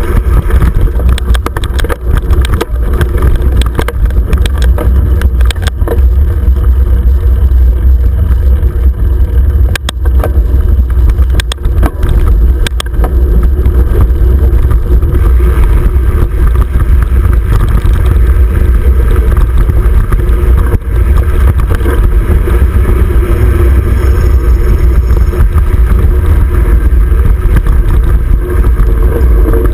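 29er mountain bike riding fast over a dirt trail, picked up by a bike-mounted GoPro: a constant deep rumble of wind and trail vibration, with quick clicks and rattles from bumps through the first half.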